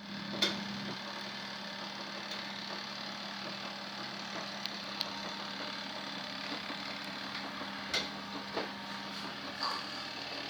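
Easymax mini washing machine running: a steady motor hum with a constant low tone, broken by a few scattered sharp clicks.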